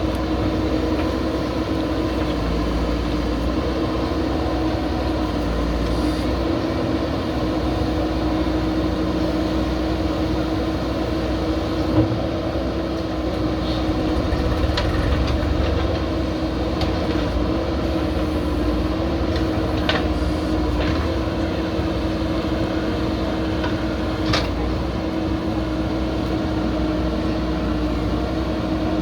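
Diesel engine of a JCB backhoe loader running steadily under work, with a few short metallic clanks.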